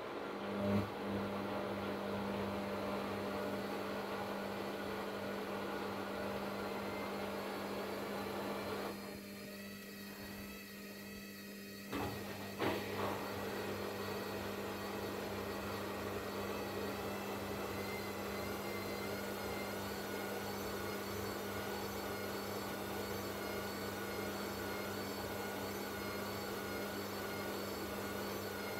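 Hisense front-loading washing machine on its spin cycle, the drum motor running with a steady hum and a higher whine. The sound thins briefly about a third of the way in, then two short clicks follow.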